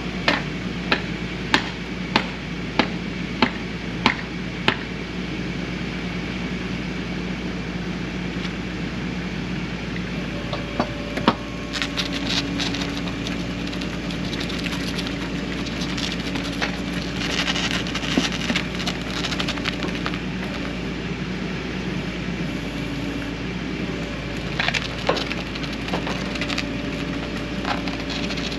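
Rollback tow truck's winch running with a steady hum that changes pitch about eleven seconds in, as it drags a car on wheel skates up the steel bed. Crackling and crunching come from the tires and skates scraping over grit, and there is a run of eight sharp clicks, about two a second, in the first five seconds.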